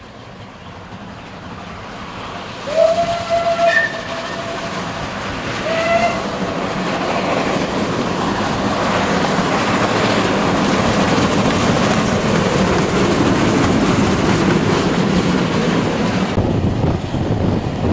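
Triple-headed steam train: two steam-whistle blasts, the first about a second long and the second short, then the locomotives' exhaust and running gear building to a loud, steady rush with wheel clatter as the train passes, working hard. Near the end the sound turns abruptly duller.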